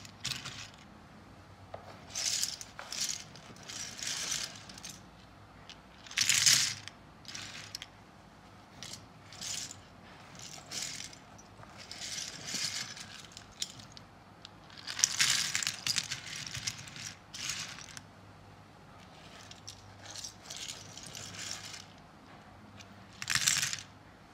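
Small flat wooden puzzle pieces clicking and clattering against one another as hands shuffle and spread a heap of them, in irregular bursts with short pauses between.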